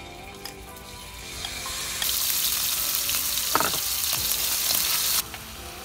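Marinated beef tenderloin frying in hot oil in a pan: a loud sizzle that swells about two seconds in and drops off abruptly near the end, with a brief sharp knock partway through.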